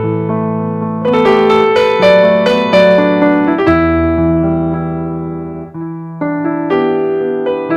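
Background piano music: a slow piece of chords and melody notes with sustained low notes, a new phrase starting about a second in and again near six seconds.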